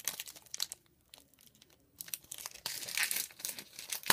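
Crinkling and tearing of a trading-card pack wrapper being opened by hand, in two spells with a short pause of about a second between them.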